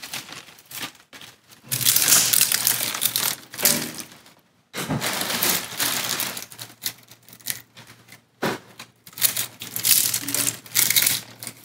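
Dried white sage leaves and stems rustling as handfuls are pulled from a plastic bag and dropped into a perforated stainless-steel still basket, with the bag crinkling. It comes in bursts of a couple of seconds with short pauses between them.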